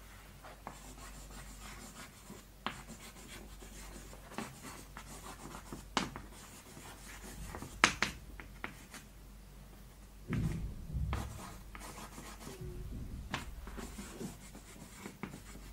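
Chalk writing on a blackboard: soft scratching of chalk strokes with scattered sharp taps as the chalk strikes the board. A brief low dull rumble comes about ten seconds in.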